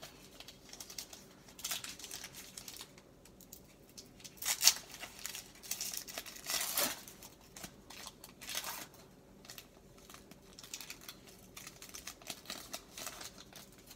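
A foil trading-card pack wrapper crinkling as it is handled and torn open at its crimped top, in a string of irregular crackles with the sharpest one about four and a half seconds in.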